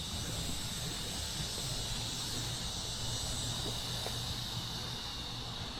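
Steady high-pitched insect trilling outdoors, over a low steady hum.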